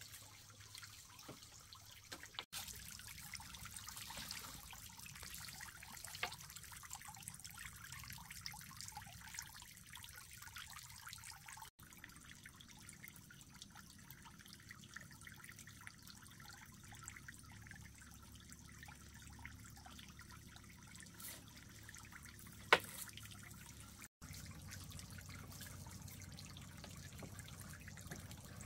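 Faint water trickling and dripping, with scattered small drips and one sharper click late on.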